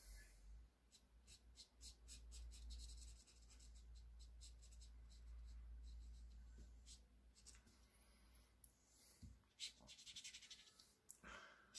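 Faint scratching of a fine-tipped black ink pen on paper, drawn in quick short hatching strokes, some in rapid runs.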